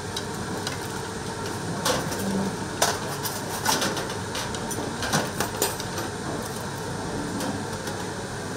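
Porcelain plates and metal serving spoons clinking against a stainless-steel steam-table counter and its food pans, a handful of sharp, irregular clinks over a steady hum of room noise.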